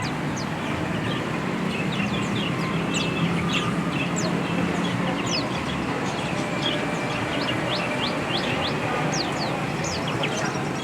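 Many small caged birds chirping: a steady scatter of short, high, down-sliding calls over a dense background din.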